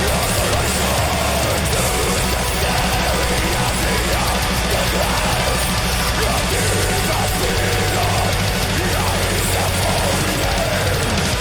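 Black metal song playing: distorted guitars and drums in a dense, unbroken wall of sound.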